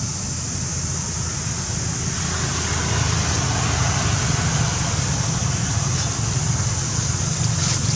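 Steady outdoor background noise: a low rumble with a constant high hiss over it, getting a little louder about three seconds in, with no distinct knocks or calls.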